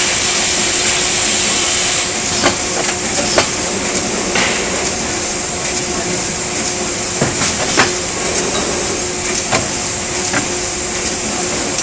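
Car radiator assembly machine running: a steady hum and hiss with a steady tone under it, a high air hiss for about the first two seconds, and irregular sharp clanks as its pneumatic cylinders and tooling move.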